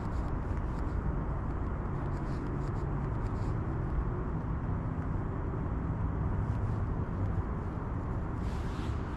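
Steady low rumble of a running vehicle, with faint ticks and a rustle near the end.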